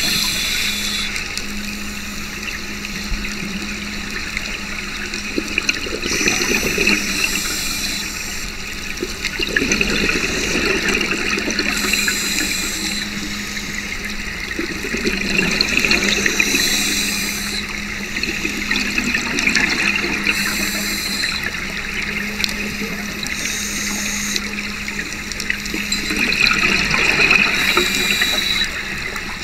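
Scuba diver breathing through a Mares Abyss regulator, heard through the camera's underwater housing: a rush of exhaled bubbles every few seconds over a steady low hum.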